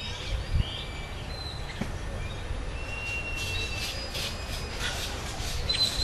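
Birds calling outdoors: thin whistled notes, some held for about a second, with a few chirps and clicks, over faint background noise.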